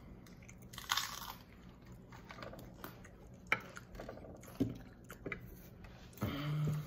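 Close-up chewing of a crunchy hard-shell chicken taco: a crunching bite about a second in, then chewing with a few sharp crackles of the shell. A brief low hum comes near the end.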